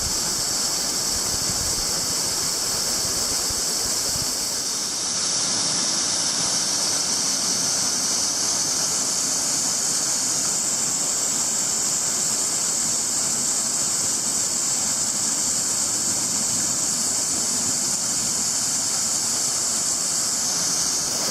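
Waterfall pouring close by, a steady rush of falling water, the falls running full after heavy rain.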